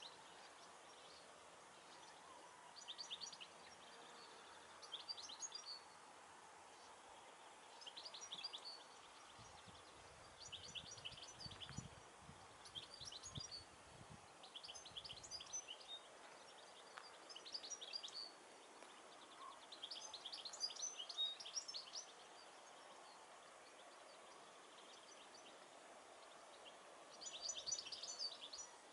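Small songbirds singing quietly in the countryside, short quick chirping phrases every couple of seconds over a faint steady hiss. A low rumble comes in about a third of the way through and fades out within a few seconds.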